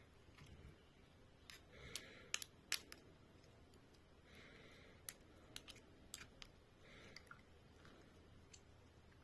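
Scattered light, sharp clicks and snips, with a soft swishing sound coming back about every two and a half seconds.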